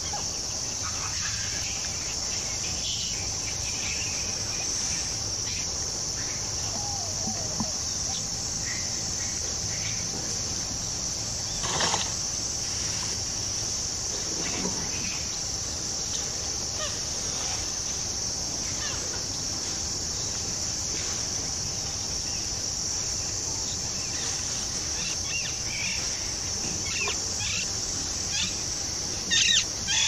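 Forest ambience: a steady high-pitched drone with scattered short bird calls over it, a louder call about twelve seconds in and a couple of loud calls near the end.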